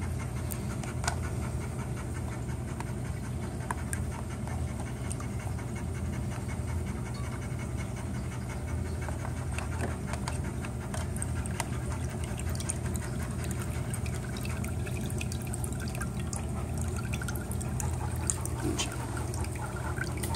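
Water trickling steadily from a tube into a plastic tub, fed by a small aquarium pump running with a constant low hum, with a few faint clicks.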